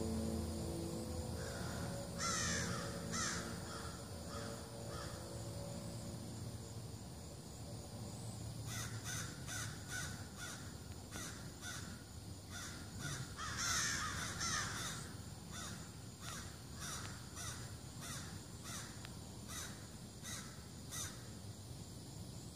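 Birds giving harsh, repeated alarm calls, the mobbing racket set off by a black bear in their tree. A few calls come near the start, then a long run of about one to two a second through the second half, loudest around the middle.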